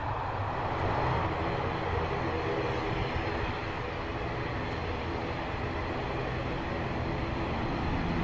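Airliner engines running on the ground: a steady drone with low humming tones, slowly growing louder toward the end.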